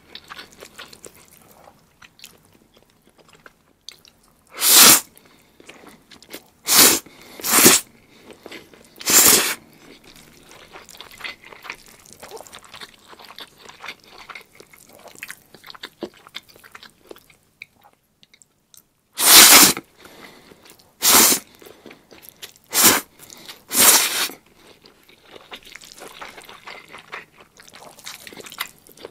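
Chewing a mouthful of black bean sauce noodles (zhajiangmian): many soft, wet mouth clicks and smacks. Eight loud, short noisy bursts cut through, four of them about five to nine seconds in and four about nineteen to twenty-four seconds in.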